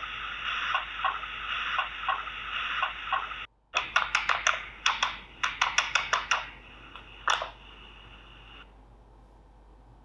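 Mechanical noise picked up through a mechanic's stethoscope: a hiss with irregular clicks. It cuts out briefly about three and a half seconds in, comes back with sharper clicks, then falls to a faint hiss near the end.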